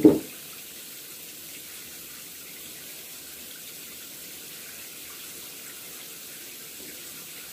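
Tap water running steadily while shampoo is rinsed out of hair, with a brief loud thump right at the start.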